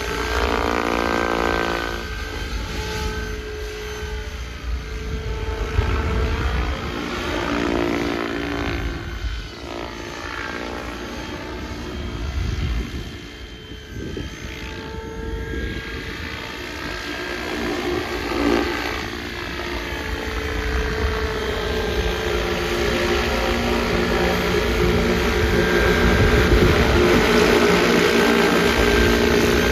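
SAB Goblin Mavraken 800-size RC helicopter flying passes overhead: the rotors buzz steadily while the pitch rises and falls again and again as it sweeps toward and away from the listener, getting louder near the end.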